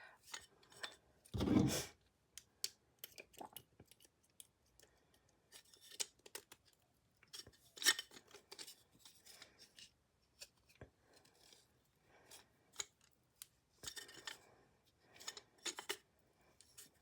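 A screw being twisted by hand into a wooden easel's frame: irregular small scrapes, creaks and clicks of metal against wood, with a louder thump about a second and a half in.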